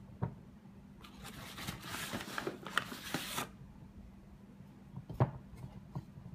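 Flour-covered hands working flour into soft pizza dough in a ceramic bowl: a dry, floury rustling that starts about a second in and lasts a couple of seconds, then a single light knock.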